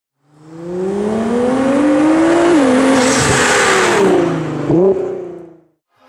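Nissan GT-R R35's twin-turbo V6 pulling hard, its pitch climbing through the revs, dropping at a gear change about two and a half seconds in and again after four seconds, with a quick blip of revs near the end. The sound fades in and fades out.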